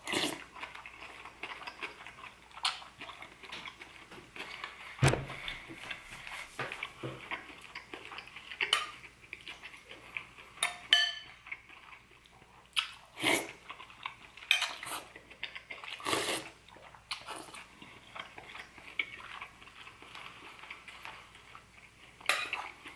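Metal spoon clinking and scraping against a ceramic soup bowl at irregular intervals, with chewing and slurping of soup between the clinks.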